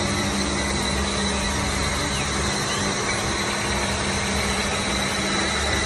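Diesel engine of a CASE single-drum road roller running steadily as the machine drives, with a faint steady high whine above the engine note.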